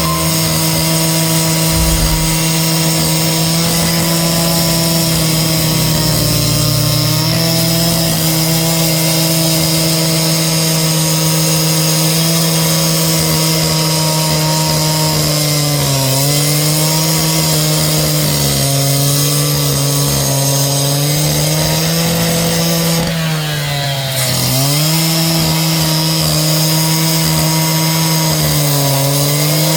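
A power saw motor running continuously at high speed. Its pitch sags several times, most deeply a little over three-quarters of the way through, as the blade bogs under load while cutting.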